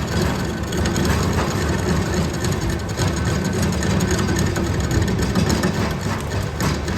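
Metal lathe running steadily, a continuous low machine hum with a dense mechanical rattle over it.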